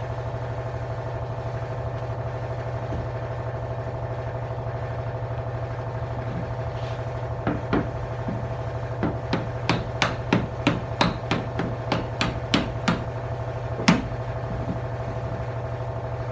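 A steady mechanical hum runs throughout. About halfway through, a body hammer starts tapping on the sheet-metal quarter panel, about two sharp taps a second with one louder blow near the end, working a crease out of the panel.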